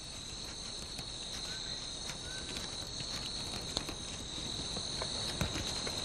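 Night insect chorus: a steady, high-pitched trilling drone made of several layered tones. A few faint clicks or rustles come in its second half.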